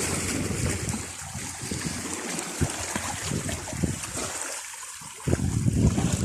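Seawater sloshing and splashing against the side of a small fishing boat in irregular surges, with a short lull about five seconds in before a louder slosh.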